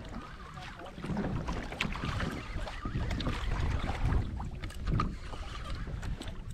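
Wind buffeting the microphone and water slapping against a plastic kayak hull, with scattered light clicks and knocks from the tackle.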